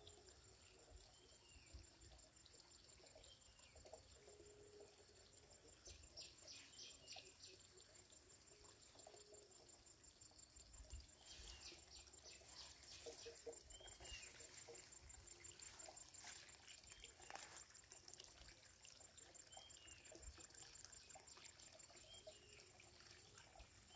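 Near silence: faint outdoor pond-side ambience with a steady high-pitched trill and occasional short bird chirps, plus a few faint clicks midway.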